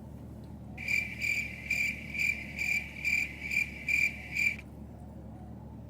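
Cricket chirping, a steady high trill pulsing about two and a half times a second, starting about a second in and cutting off abruptly after nearly four seconds.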